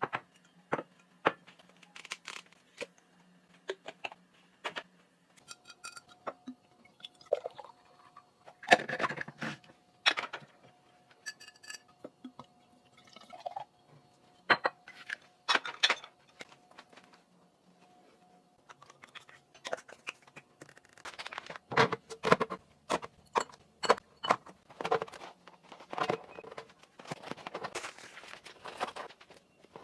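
Kitchen containers and dishes being handled and set down: irregular clicks, knocks and glassy clinks, with a ringing clink about nine seconds in and a busier run of clatter in the last third.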